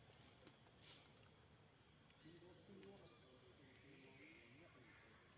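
Near silence: a faint, steady, high-pitched insect drone in the forest background, with a few faint clicks.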